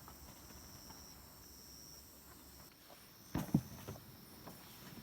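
Crickets chirping steadily, with faint scattered clicks and one short thump about three and a half seconds in.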